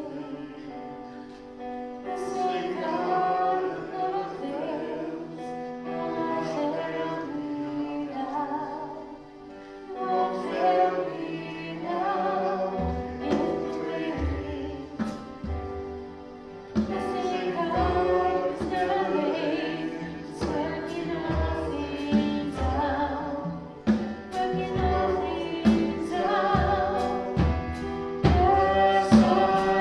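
Live church worship band playing a closing song: several voices singing with a keyboard. A drum kit joins about 13 seconds in, with a steady beat and cymbal hits.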